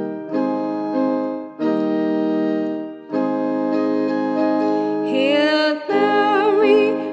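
Electronic keyboard playing slow, sustained chords as a musical introduction, the chord changing every second or so. About five seconds in, a singing voice with vibrato comes in over the chords.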